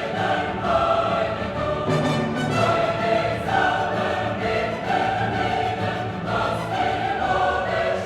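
Classical choral music: a choir singing sustained chords with orchestral accompaniment.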